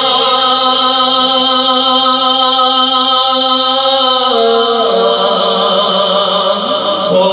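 A man singing a naat into a microphone, holding long drawn-out notes. The pitch steps down about four seconds in and rises again near the end.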